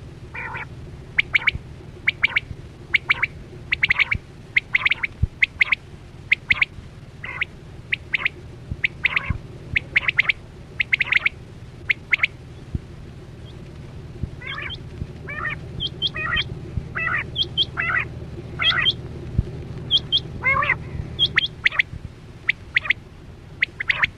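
Quail calling over and over in short, sharp calls, roughly two a second. From about the middle on, some calls waver quickly up and down in pitch. A steady low hum runs underneath.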